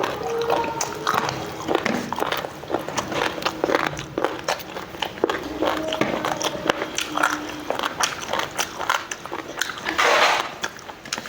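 Close-miked eating sounds of a mouthful of rice being chewed: a dense run of wet smacks and clicks, with a louder, noisier burst about ten seconds in.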